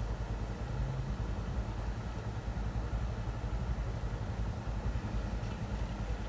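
Steady low hum of a car engine idling while it waits at a closed level-crossing barrier.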